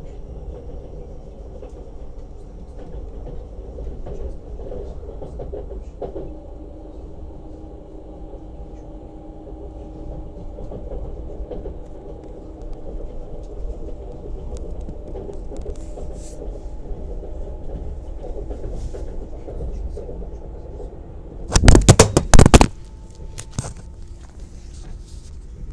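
Lastochka electric train running: a steady low rumble with whining tones from the drive that shift in pitch about six seconds in. Near the end, a loud cluster of clattering knocks lasting about a second as the wheels pass over rail joints.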